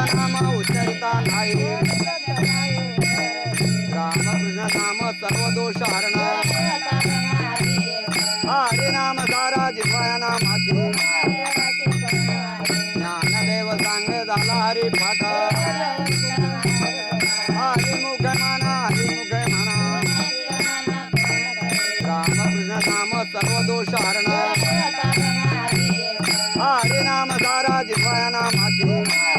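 Group devotional singing of a hymn (bhajan), with a steady, fast jingling beat of hand percussion and a held drone underneath.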